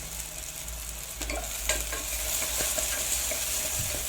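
Chopped onion frying in hot oil in a pressure cooker, a steady sizzle with scattered scrapes and clicks of stirring against the pot.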